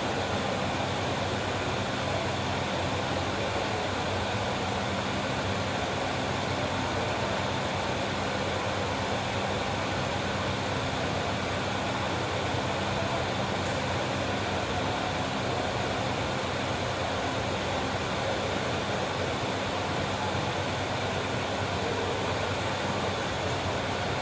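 Steady background hum and hiss, unchanging, with a few low fixed tones under an even rush of noise.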